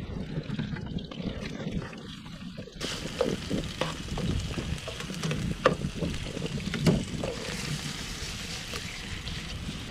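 Sliced paua (abalone) and pieces of fish sizzling in oil in a frying pan on a portable gas stove, with a wooden spatula stirring and knocking against the pan in scattered clicks. The sizzling hiss comes in about three seconds in, after a low rumble.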